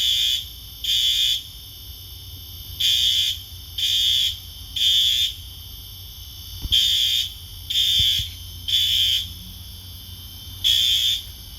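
Whole-house fire alarm sounding in the temporal-three evacuation pattern: groups of three high-pitched beeps about a second apart, each group followed by a short pause, repeating. It was set off by smoke from frying bacon extra crispy.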